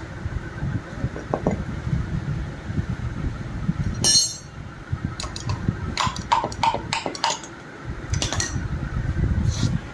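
Honda Dio scooter engine running with a low, uneven rumble, with a series of sharp metallic clinks over it, about a dozen spread through the middle and end.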